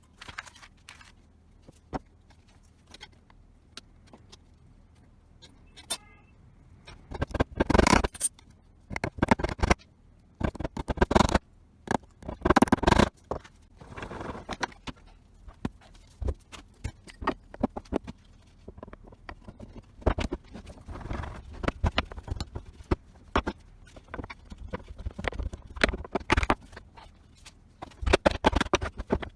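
Irregular knocks, clinks and scrapes of tools and metal parts being handled and worked on. It is fairly quiet for the first several seconds, then busier, with a few louder scraping bursts of about a second each.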